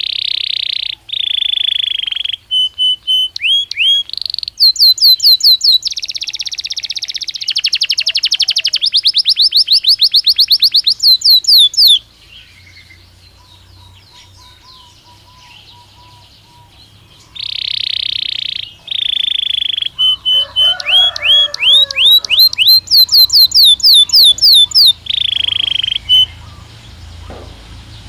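Belgian canary singing: two long song phrases of sustained notes and rapid trills of fast up-sweeping notes, separated by a pause of several seconds.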